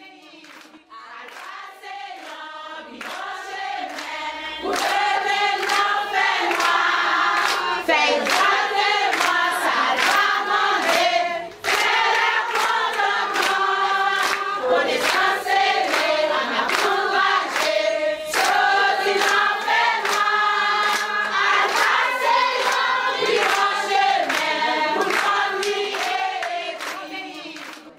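A group of adults, mostly women, singing together in chorus and clapping along in rhythm. The singing fades in over the first few seconds.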